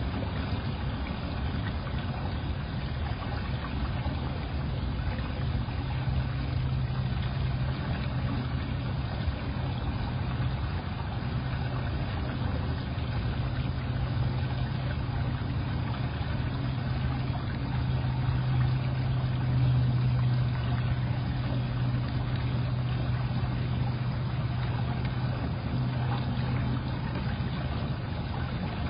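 Steady low hum over an even hiss, like a motor running, unchanged throughout, getting slightly louder briefly about two-thirds of the way in.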